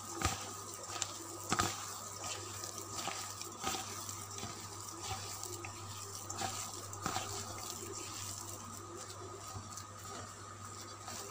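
A hand kneading and mixing a moist mash of boiled chana dal with brown sugar and grated coconut in a stainless steel bowl: soft, irregular wet squishing and scraping, with a few light taps against the bowl.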